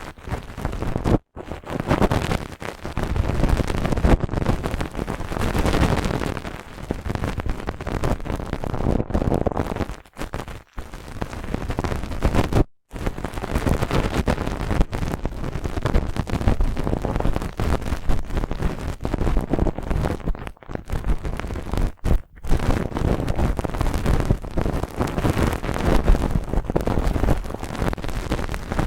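Brush bristles rubbing and scratching close against the microphone: dense, crackly scratching that stops briefly a few times.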